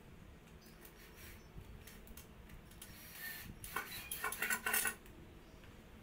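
A quick run of hard clicks and clinking clatter about three seconds in, lasting under two seconds, as loose wooden sticks and tools are handled on a tiled floor; a few lighter clicks come before it.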